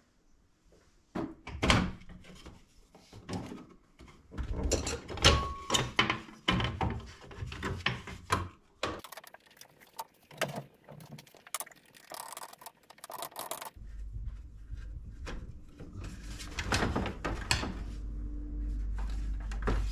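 Screws being taken out and a plastic dash bezel worked loose on a 1998 Jeep Wrangler TJ: irregular clicks, knocks and rattles of a screwdriver and plastic trim. A low steady hum comes in about two-thirds of the way through.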